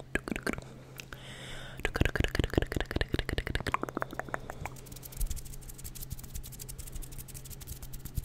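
ASMR hand sounds: hands moved and rubbed fast right at the microphone, making rapid clicks and taps. They get louder and heavier for a couple of seconds in the middle, then turn into a quicker, finer crackle.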